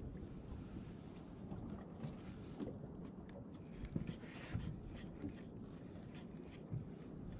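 Steady low rumble of a small boat at sea, with scattered light knocks and clicks.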